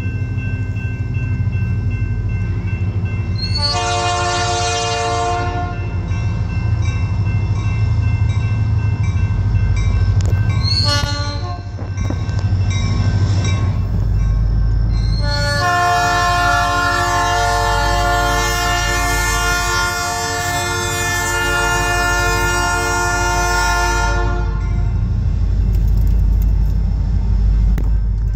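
Wisconsin & Southern diesel locomotive's air horn sounding for a grade crossing: a long blast, a short one, then a long drawn-out blast of about nine seconds. A steady low rumble runs underneath.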